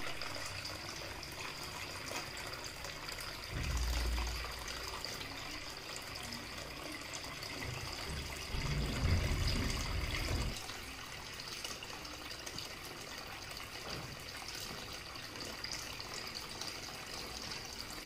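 Small tabletop waterfall fountain running: a thin stream of water falling and trickling into its basin, steady and quiet. Two brief low rumbles break in, about four seconds in and again around nine to ten seconds.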